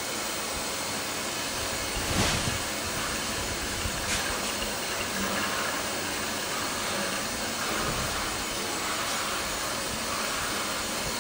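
Steady hiss from a small stainless-steel ethanol still as fuel is drawn off its tap through a hose into a plastic jerry can, with one brief louder knock about two seconds in.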